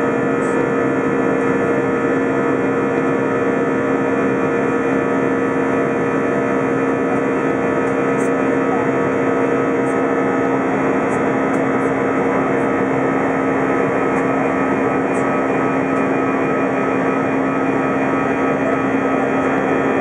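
Cabin noise inside an Airbus A320 climbing after takeoff: the steady drone of the wing-mounted jet engine and rushing air, with a couple of steady humming tones held under it.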